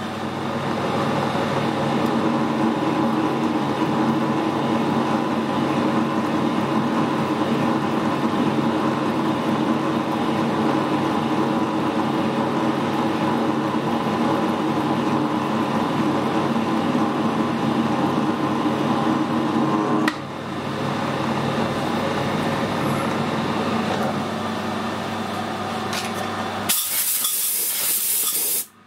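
Metal lathe screw-cutting a thread on a steel tube: a steady hum and whine from the lathe's drive, with the threading tool cutting, dipping briefly about twenty seconds in. Near the end comes a short, loud hiss of compressed air, which cuts off suddenly.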